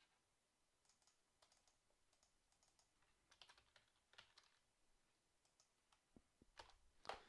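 Faint, irregular keystrokes on a computer keyboard as a short word is typed, deleted and retyped, with a few slightly louder key clicks in the middle and near the end.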